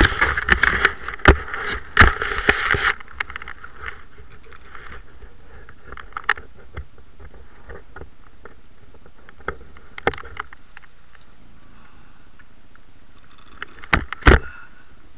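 Snowboard sliding and scraping over packed, tracked snow, picked up by a board-mounted GoPro. A loud scraping rush with rapid knocks for about the first three seconds, then a quieter steady hiss with scattered knocks, and two sharp knocks near the end.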